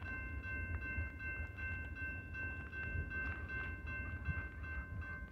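Railroad grade-crossing warning bell ringing steadily over a low rumble, warning that a train is approaching.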